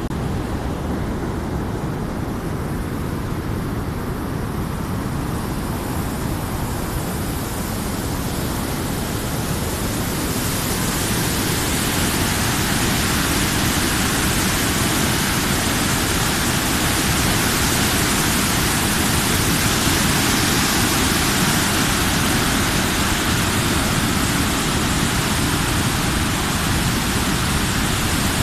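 Water pouring over a concrete dam spillway and churning below it: a steady rushing noise that grows louder and brighter about ten seconds in.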